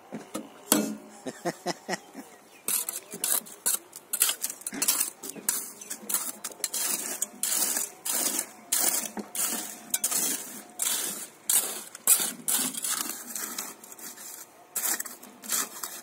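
Irregular scraping and clinking of hand tools, stones and wet concrete as a rebar column footing is filled and packed by hand.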